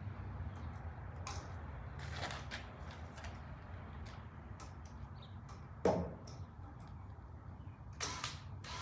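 Small clicks and scrapes of an electrical outlet and its wires being handled and fitted, with a sharp knock about six seconds in and a softer one near the end, over a steady low hum.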